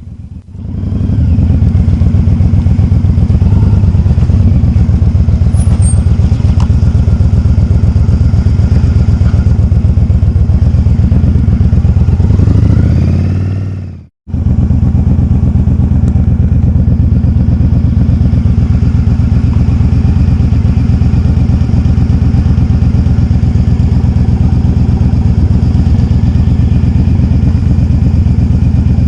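Motorcycle engine running steadily at speed, loud and close to the microphone. It fades out and cuts to silence about halfway through, then comes back just as steady.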